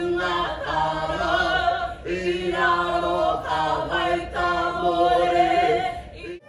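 A small group of voices singing unaccompanied, in long held phrases with short breaks about two seconds in and again around four seconds.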